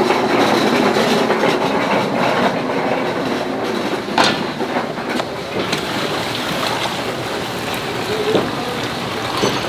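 A large steel pan of thick, spicy tteokbokki sauce simmering and bubbling, with a sharp click about four seconds in. Near the end, broth is poured from a pot into a steel tray of fish-cake skewers.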